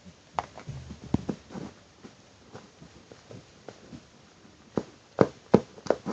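Scattered clicks and knocks of a spoon against a bowl as a shaving-foam, shower-gel and flour slime mixture is handled, with a quick run of louder knocks near the end.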